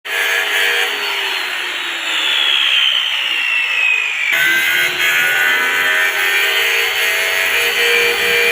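A power tool running steadily with a whining pitch that falls during the first half; the sound cuts abruptly partway through and resumes with a steadier whine.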